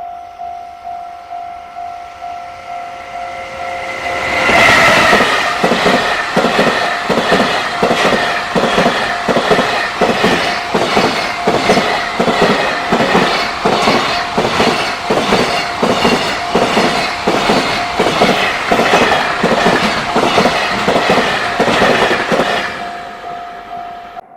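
Railway level-crossing alarm ringing its repeating bell, then a JR Freight train passing over the crossing for about eighteen seconds. The passing is a loud rumble with a steady clatter of wagon wheels over the rail joints. The crossing bell is heard again faintly as the train clears near the end.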